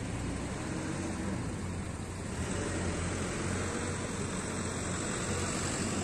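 Farm tractor engines running steadily in the field, a continuous low drone with an even hiss over it and no sharp changes.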